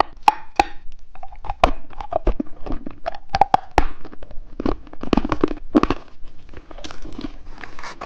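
Plastic candy wrappers crinkling and crackling as they are handled, with many irregular sharp crackles.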